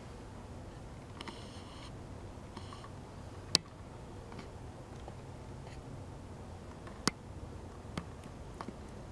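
Small plastic buttons and a hot glue gun being handled on a tabletop while buttons are glued onto a canvas: a few sharp clicks, the loudest about three and a half seconds in and another about seven seconds in, over quiet room tone.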